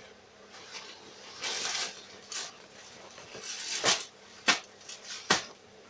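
Denim jeans rustling and swishing as they are handled and smoothed flat on a table, with three short sharp knocks in the second half.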